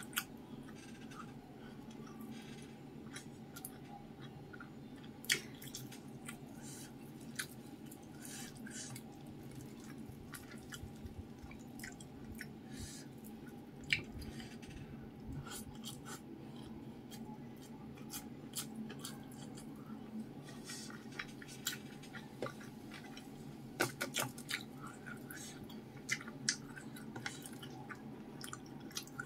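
Close-miked eating sounds: chewing fried fish and rice with wet mouth clicks, and fingers picking at the fish and rice on the plate, with many short sharp clicks throughout over a steady low hum.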